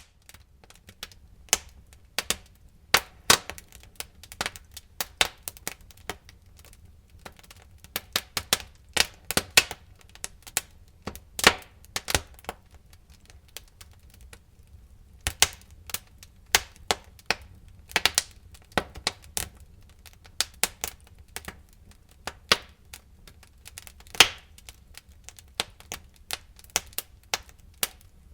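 Wood fire burning, crackling with irregular sharp pops and snaps, some loud, over a faint low rumble.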